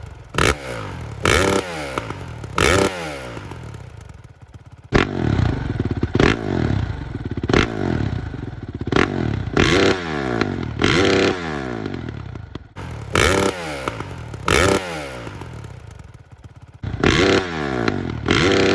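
A Honda CRF450's single-cylinder four-stroke engine, fitted with an FMF 4.1 RCT stainless slip-on muffler with its spark-arrester core in, idling and given a series of quick throttle blips about every one to two seconds. Each rev drops back in pitch to idle.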